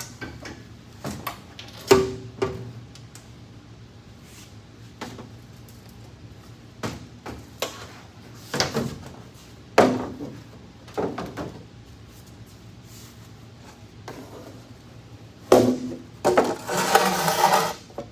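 Scattered knocks and clunks of parts being handled and pulled inside a race truck's cab, with a rougher, rattling noise lasting about a second near the end.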